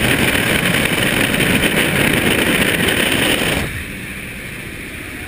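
Loud rush of wind and engine noise through the open door of a jump plane in flight. About three and a half seconds in it drops abruptly to a quieter, steady engine drone.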